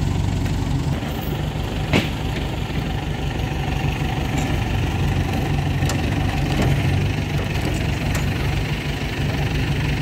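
Diesel engine of a heavy recovery machine idling steadily, with one sharp click about two seconds in.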